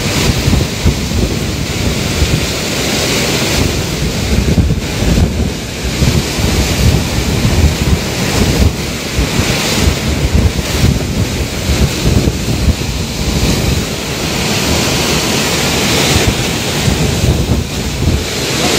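Typhoon winds and driving rain, gusting up and easing again, with heavy wind buffeting on the phone's microphone.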